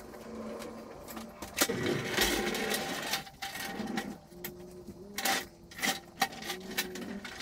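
Hand pallet jack rattling and clanking as it is pulled over a concrete floor, loudest about two seconds in, followed by a few sharp clunks.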